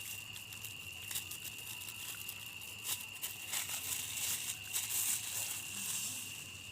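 Plastic salt packet crinkling as it is handled and torn open, with scattered rustles and clicks. Crickets chirr steadily in the background.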